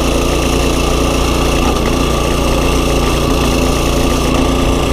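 Small pull-start engine of a mini bike running steadily under throttle while riding, its pitch holding even.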